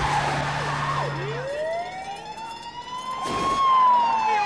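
Police car siren wailing: one long rise in pitch, then a slow fall. A short rush of noise comes near its peak, about three and a half seconds in.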